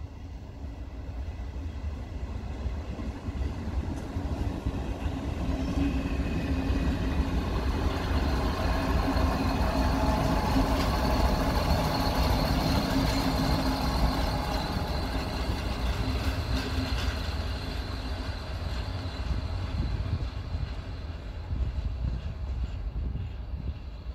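HŽPP series 7121 diesel railcar moving past with its engine running and wheels on the rails. It grows louder to a peak about halfway through, with a steady whine over the low rumble, then fades.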